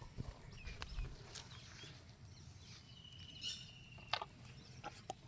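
Faint outdoor background with scattered clicks and knocks, and a short high chirp about three seconds in.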